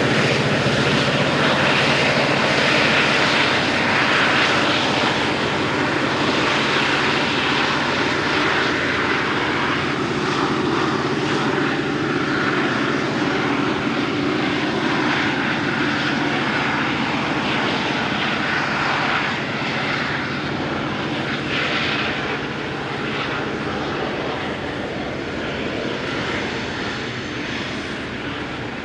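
Two EMD 645 turbocharged 81 class diesel-electric locomotives working hard up a grade as they pass and draw away, their low engine drone fading out about two-thirds of the way through. Loaded grain hopper wagons keep rolling past with steady wheel-on-rail rumble.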